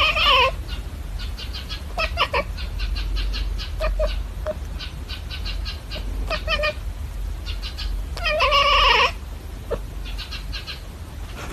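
A cat meowing: one call right at the start and a longer one about eight and a half seconds in, with runs of quick short clicking sounds between them.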